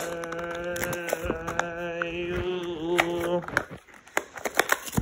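A person's voice holding one long, steady note that stops about three and a half seconds in, with small clicks and handling noises over it. The clicks continue after the note ends.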